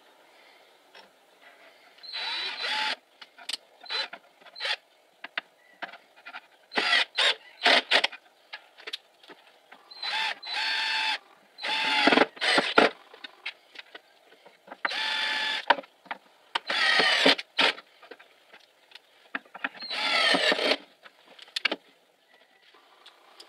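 Cordless drill-driver driving screws into a wooden workbench frame in about seven short runs of a second or less, its motor whine bending in pitch within each run. Clicks and knocks of parts being handled come between the runs.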